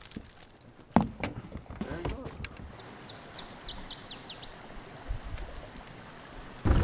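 Quiet outdoor ambience with a sharp knock about a second in and a few faint words. About three and a half seconds in, a bird gives a quick series of high whistled notes, each falling in pitch.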